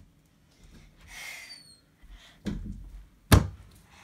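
Household knocks and thuds, like a door or drawer being handled: a brief rustle about a second in, a duller thud, then one sharp, loud knock near the end.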